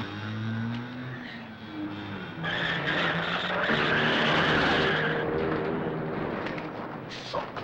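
A Honda Life Step Van's small 360 cc two-cylinder kei engine accelerating hard, with a tyre squeal from about two and a half seconds in that lasts nearly three seconds.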